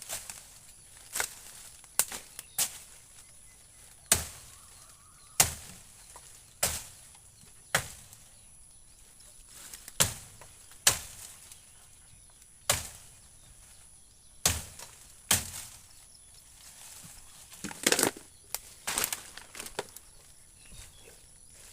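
A blade chopping wood: about fifteen sharp strikes at an irregular pace, roughly one a second, sometimes two in quick succession.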